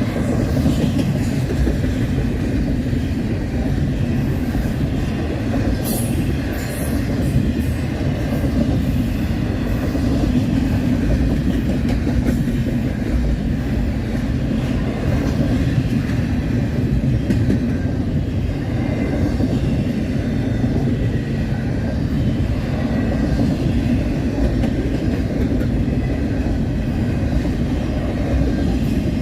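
Double-stack container train's cars rolling past: a steady rumble of steel wheels on rail with clickety-clack, and a few sharp high clicks about six seconds in.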